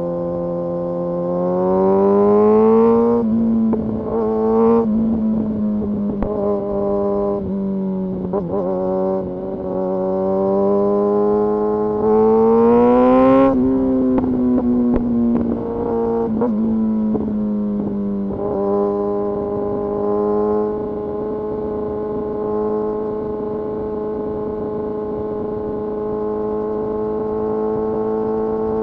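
Kawasaki Ninja ZX-6R inline-four engine under way, its revs climbing twice (a couple of seconds in and again around the middle) and falling away between. For the last several seconds it holds steady revs.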